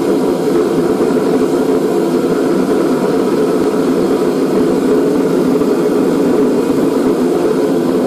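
Reddy Heater 55 kerosene forced-air torpedo heater running steadily, its motor-driven fan and air pump blowing through the lit burner with an even rushing noise. It is firing now that a replacement ignition module gives it spark.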